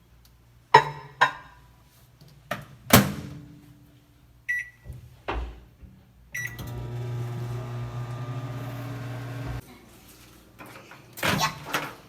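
Microwave oven being used: door clicks and a thud as it is shut, keypad beeps, then the oven runs with a steady hum for about three seconds and stops abruptly. More door clicks come near the end.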